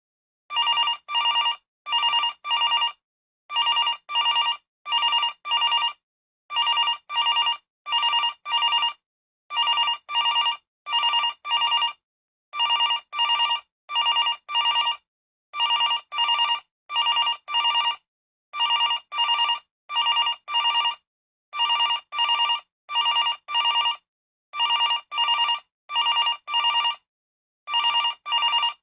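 Landline telephone ringing in a steady repeating pattern: short rings in groups of about four, a new group every three seconds.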